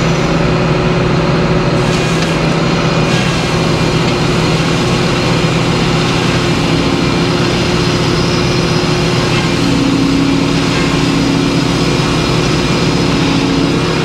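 Large circular sawmill blade cutting an opening slab off a white pine log as the carriage feeds it through, over the steady, loud running of the mill. A second steady hum joins in about halfway through the cut.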